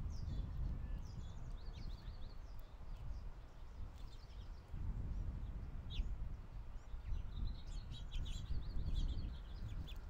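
Small songbirds chirping, with quick runs of short repeated high notes near the start and again from about seven and a half seconds in, over a steady low rumble.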